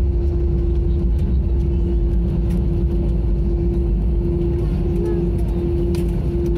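Airbus A320 cabin noise during the landing roll: a loud low rumble from the wheels on the runway and the CFM56 engines, with a steady hum, as the jet slows after touchdown.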